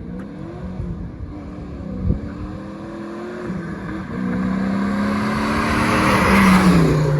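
Supercharged 2001 Ford Mustang Bullitt V8 with Flowmaster exhaust accelerating, its engine note climbing and stepping down at gear changes. It gets louder about four seconds in and passes close by near the end, the pitch dropping as it goes past.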